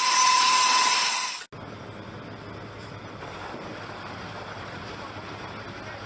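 Helicopter turbine engines: a loud hiss with a steady whistling tone that cuts off abruptly about a second and a half in, followed by a much quieter steady engine noise with a low hum.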